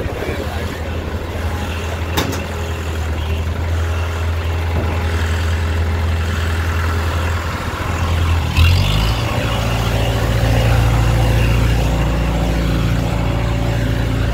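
Heavy diesel engine of a Hydra mobile crane running steadily. About two-thirds of the way in comes a short knock and hiss, after which the engine sounds lower and louder.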